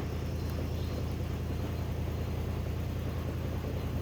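Off-road SUV engine running steadily with a low drone.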